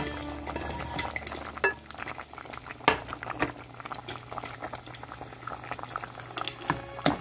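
Coconut curry bubbling at a simmer in a steel pot, with many small irregular pops. A few louder knocks come as carrot chunks are tipped in and moved with a wooden spoon.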